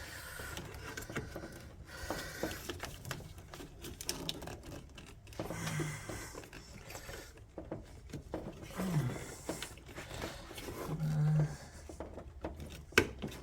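Scattered clicks, knocks and rattles of hands working plastic wiring connectors loose from a car's engine computer (PCM), with a sharper click near the end. A few short low grunts come in between.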